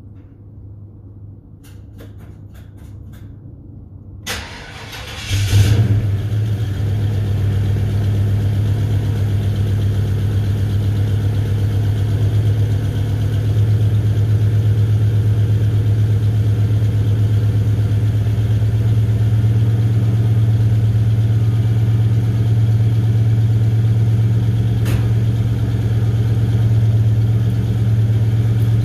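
Cold start of a 1955 Chevrolet 210's engine: a few light clicks, then the starter cranks about four seconds in and the engine catches a second later with a brief rev. It then settles into a steady idle that gets slightly louder around thirteen seconds in, with one sharp click near the end.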